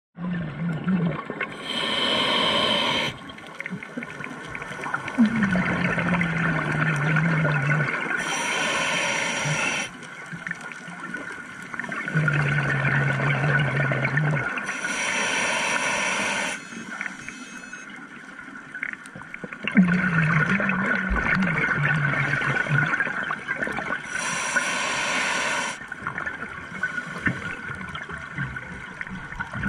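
A scuba diver breathing through a regulator, one breath about every six to seven seconds. Each inhale is a short, sharp hiss of air from the demand valve, and each exhale is a longer bubbling rush with a low buzz.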